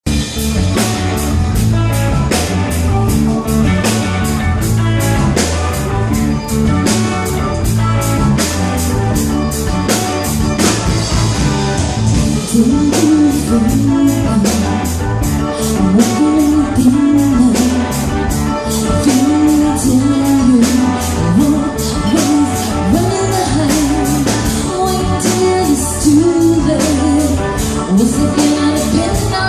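Rock band music with a steady drum beat and guitar; a voice starts singing about twelve seconds in.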